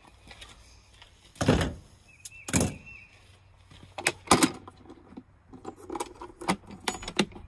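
A plastic storage box being handled: a few separate knocks and clicks from its lid and latch and the tools in hand, followed by lighter ticks near the end. A brief high squeak comes around the second knock.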